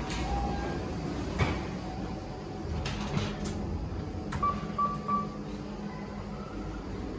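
KONE MonoSpace elevator: a falling two-note arrival chime, then the sliding doors opening with a knock about a second and a half in. A button press on the car panel clicks about four seconds in and is answered by three short beeps, over a steady low hum.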